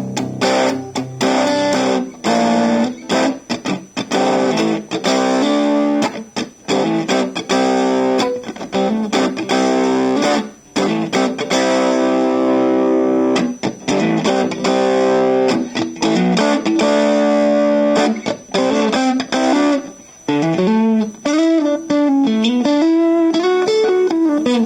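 Yamaha HR 1000 played through distortion: a run of distorted chords, many stopped short, then near the end a single-note melody with pitch bends.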